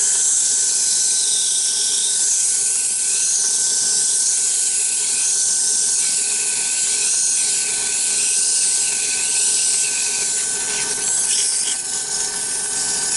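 Wood lathe running while a strip of 100-grit sandpaper is held against the inside of the spinning wooden egg cup: a steady high sanding hiss over a constant thin whine.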